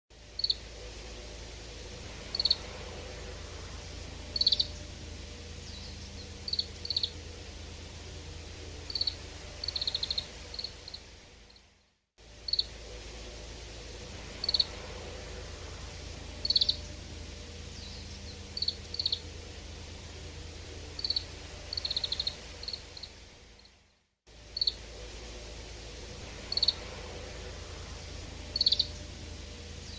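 Oriental greenfinch calls: short, high single chirps and a few quick twittering clusters over a steady low background noise. It is a looped recording: the same roughly 12-second sequence repeats three times, broken by a brief silence about 12 and 24 seconds in.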